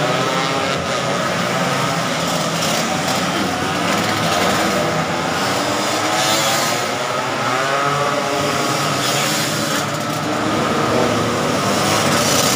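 Several racing scooters' small two-stroke engines revving hard, their pitches overlapping and rising and falling as the riders ease off and accelerate through the bend. A louder surge comes each time a scooter passes close.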